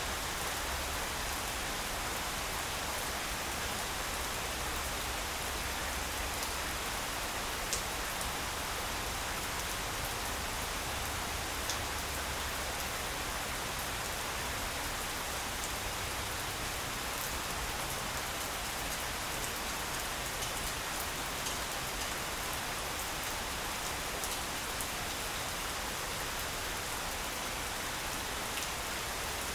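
Steady rain falling on grass close to the microphone, with single louder drops ticking now and then.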